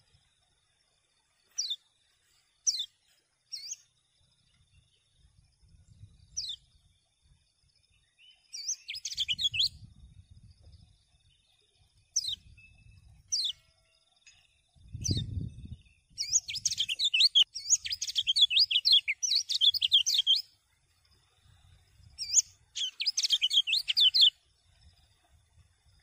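Caged kecial kuning, a yellow white-eye, calling: single short high chirps that slide downward, and bursts of rapid twittering song, the longest lasting about four seconds past the middle. A low thump about halfway through.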